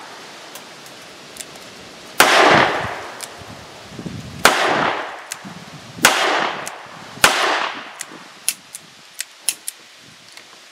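Four shots from an Alfa Proj 6-inch-barrel .357 Magnum double-action revolver, each a sharp crack that rings out for about half a second. They are spaced about two, one and a half, then one second apart. A few faint sharp ticks follow near the end.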